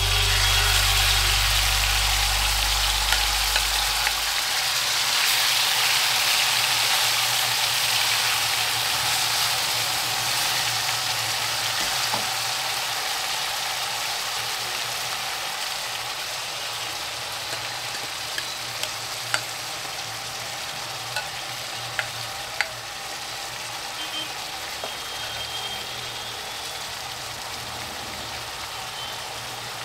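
Food frying in hot oil in a pan: a steady sizzle that slowly dies down, with a few sharp clicks near the two-thirds mark.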